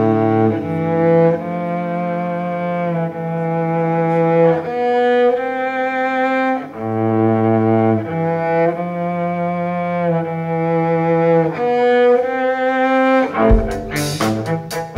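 Solo cello bowing slow, long held notes, the pitch moving every second or two. Drum hits and cymbal crashes come in near the end.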